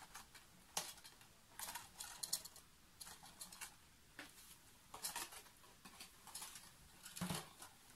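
Faint, irregular rustles and light taps of a small cardboard gift box being handled, its heart-shaped top flaps folded shut, with a slightly heavier tap near the end.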